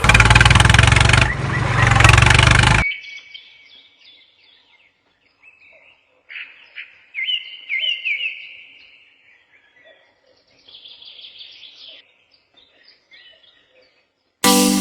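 A loud rushing noise with a low hum underneath cuts off sharply about three seconds in. Small birds then chirp and twitter in short, quick rising and falling calls.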